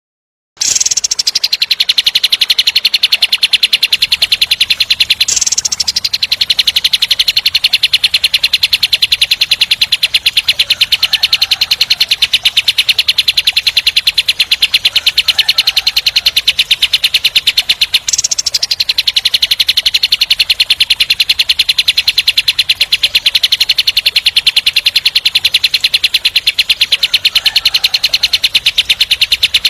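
Kapas tembak bird singing its fast, tight 'tembak' roll: a long run of rapid, evenly repeated rough notes. It starts about half a second in and goes on almost without a pause, with two brief breaks.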